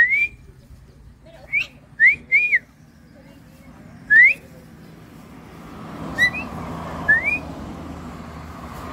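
A string of short whistles, each a quick upward glide, about seven of them at uneven gaps. In the second half a low rushing noise slowly builds beneath them.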